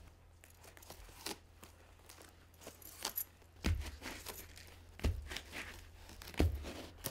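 Dry palm-leaf strips rustling and crackling as hands braid and handle a woven palm-leaf band, with three dull thumps in the second half.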